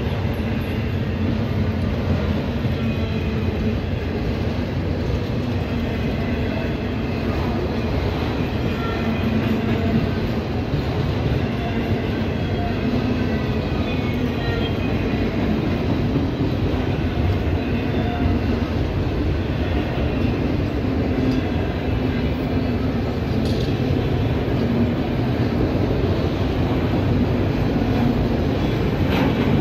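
Freight train of autorack cars rolling steadily past, with a continuous rumble of steel wheels on the rails.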